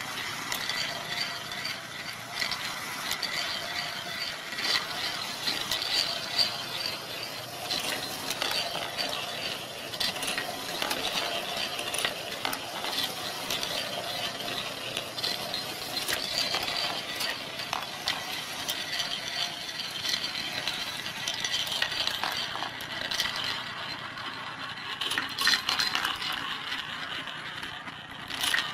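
Wooden marble machine running: steel balls click and clink steadily as they ride the rocker-arm lift and roll around and drop through the wooden bowls.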